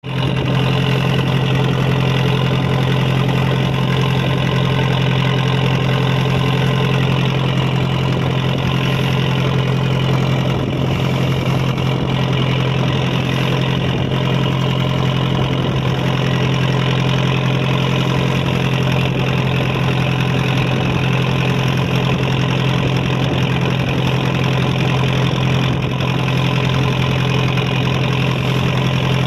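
Fishing boat's engine running steadily, a constant low drone that does not change in pitch or level.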